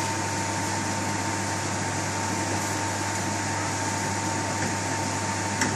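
Steady fan-like hum with a faint high whine, from a machine such as a kitchen extractor fan; a small click near the end.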